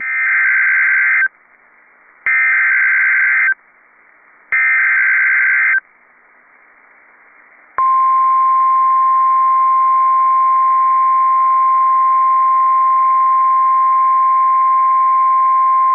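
NOAA Weather Radio SAME alert header: three buzzy digital data bursts, each a little over a second long and about a second apart. Then the steady 1050 Hz warning alarm tone sounds for about nine seconds, signalling a new severe thunderstorm warning.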